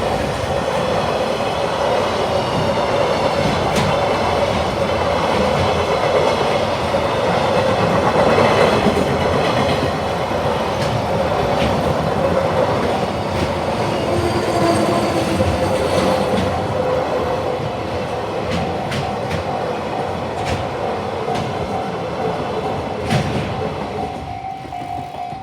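A Nambu Branch Line train rolling past a level crossing. The rumble of wheels on rail is loudest about eight seconds in, then fades, with clicks from the wheels over rail joints in the later part. Throughout, the crossing's warning bell rings steadily, and it is left on its own as the train fades near the end.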